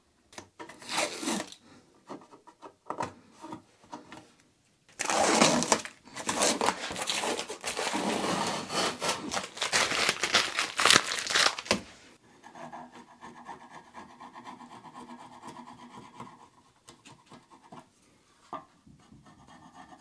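Adhesive tape being peeled off the outside of a glued-up teak stave cylinder: a few short rips, then a long continuous tearing pull for about seven seconds. After that it goes quieter, with a faint steady hum and a single click near the end.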